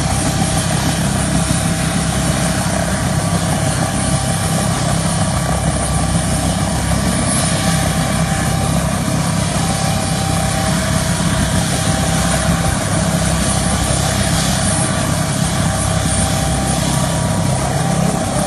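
A Bell UH-1 Huey helicopter running on the ground, its turbine and two-bladed rotor turning steadily.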